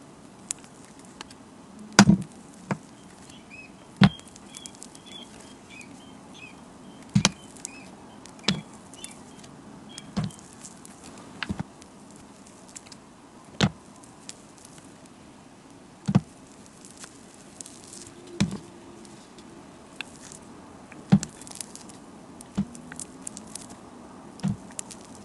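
Metal blade chopping through bars of glittery soap: about a dozen sharp cuts at uneven gaps of one to three seconds, the loudest two near the start.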